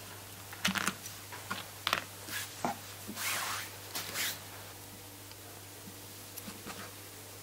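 Kitchen knife clicking and knocking as it cuts through king crab shell onto a plastic cutting board, a quick run of sharp taps in the first few seconds. Then a cloth brushes twice across the board, and faint knife taps follow near the end as a cucumber is sliced, over a steady low hum.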